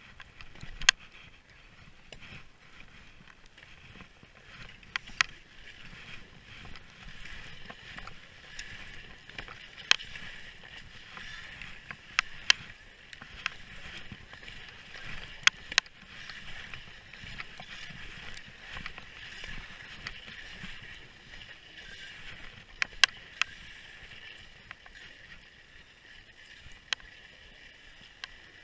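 Skis sliding over snow, a steady hiss that swells and fades with the turns. Sharp clicks and knocks stand out every few seconds.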